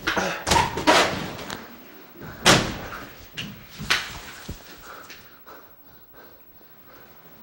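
A door slamming and several loud bangs and thuds, the loudest about two and a half seconds in, then only faint knocks.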